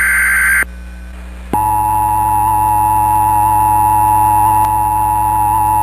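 Emergency Alert System broadcast: a SAME header data burst, a harsh buzzing squawk, ends about half a second in. After about a second's pause the steady EAS two-tone attention signal starts and holds.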